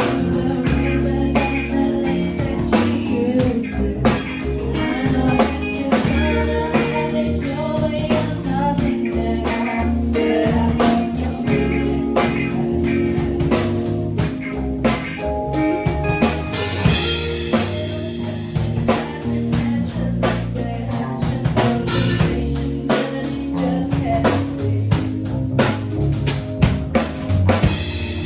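A song playing: a singing voice over guitar and drum kit, with a steady beat.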